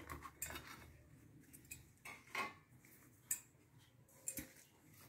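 Crisp fried pakwans being shifted and laid on a ceramic plate: faint scattered taps and scrapes, with a few sharper clicks.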